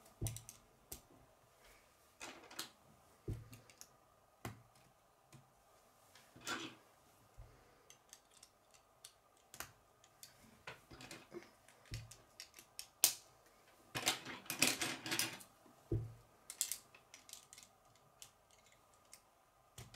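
Plastic K'nex rods and connectors clicking and snapping together by hand, with a few dull knocks. The clicks come irregularly, with a quick run of them about two-thirds through.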